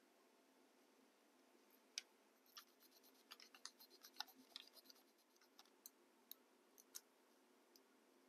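Faint scratching and light ticks of a pencil point and a burnishing tool rubbing dry transfer lettering onto a model locomotive's tank, starting about two seconds in and going on in small irregular strokes for about five seconds.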